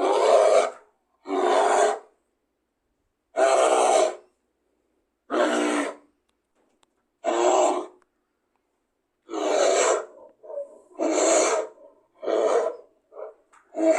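A series of about ten short, rough animal calls presented as creodont sounds, each lasting under a second, with silent pauses between them. The calls come closer together and shorter toward the end.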